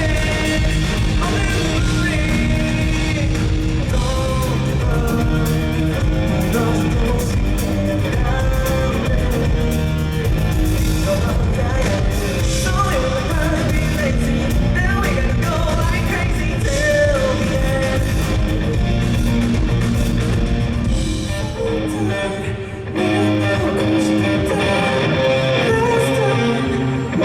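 Live rock band playing, with electric guitar, bass and drums and a singing voice. A little over 20 seconds in the band briefly drops back and the low end thins out, then it comes back in.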